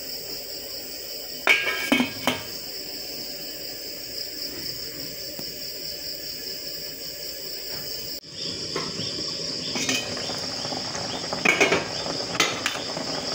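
Crickets chirping steadily in the background, with a few sharp metallic clinks of a stainless steel cooking pot and its lid about a second and a half in and again near the end. After a cut partway through, the noise thickens as the soup bubbles at a rolling boil.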